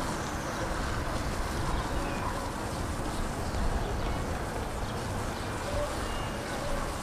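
Steady outdoor city ambience: a low rumble of distant traffic with wind on the microphone.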